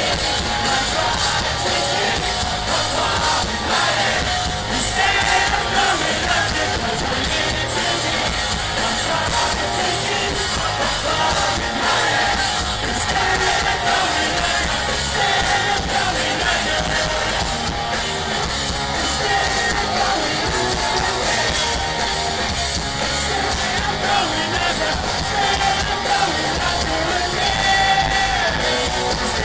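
Pop-punk band playing live at full volume: electric guitars, drums and singing.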